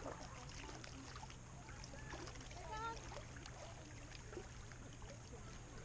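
Small waves lapping and trickling against shoreline rocks, with scattered faint clicks and a brief pitched sound about three seconds in.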